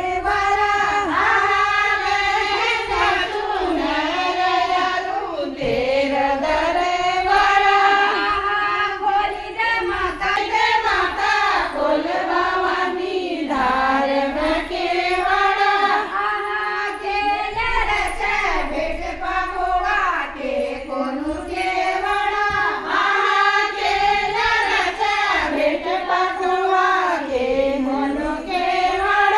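A child singing a song unaccompanied, one high voice carrying a continuous, wavering melody.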